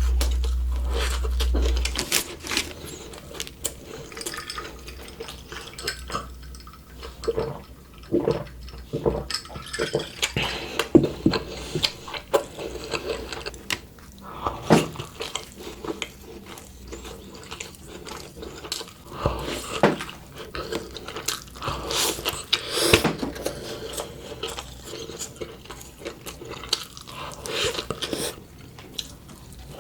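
Close-miked eating sounds: wet chewing and irregular mouth smacks and clicks, with a low hum in the first couple of seconds.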